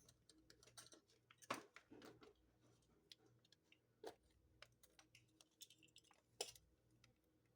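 Faint scattered clicks and light taps of a measuring spoon and spice jars being handled while a teaspoon of basil is measured out, with two louder knocks, about a second and a half in and near the end.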